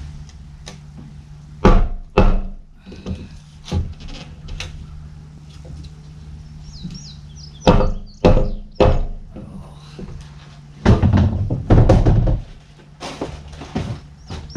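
Hollow knocks and thumps from inside a plastic septic tank as a pipe is smacked through its rubber gasket: sharp blows in bunches, then a longer run of scraping knocks about eleven seconds in.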